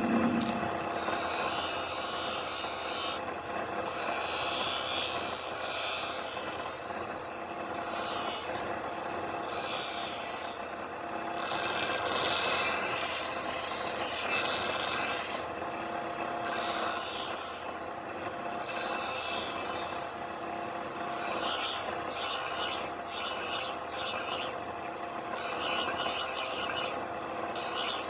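Rasping, rubbing strokes of hand abrasive work on an old knife, going on for several seconds at a time with brief pauses between passes.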